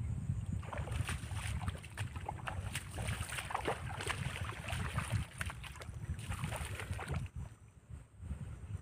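Wind rumbling on the microphone over irregular splashing in shallow water as a hooked snakehead is reeled in. The splashing eases off near the end.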